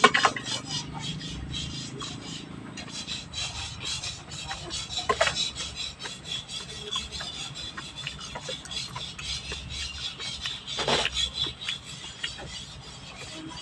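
Eating sounds: continuous fast chewing and mouth clicks, with three sharper clicks, one at the very start, one about five seconds in and one near eleven seconds in.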